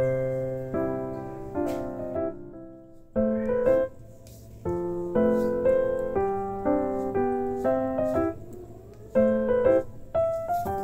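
Background piano music: a keyboard melody over changing chords.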